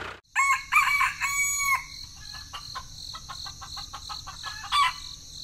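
Rooster crowing, a cock-a-doodle-doo ending in a long held note, followed by a run of quick clucks and a short call near the end, over a steady high hiss.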